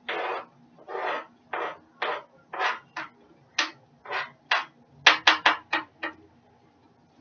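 Kitchen utensil scraping and knocking in a steady rhythm of about two strokes a second, then a quick run of five sharper knocks about five seconds in.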